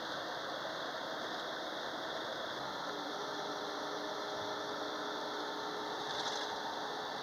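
Steady road and engine noise inside a moving bus, with faint mechanical rattling and a low hum that comes in about three seconds in.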